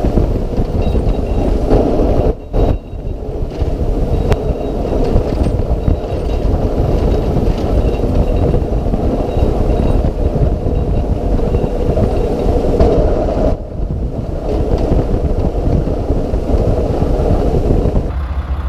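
Mack snowplow truck on the move: a loud, heavy rumble of engine and road noise that twice drops away briefly.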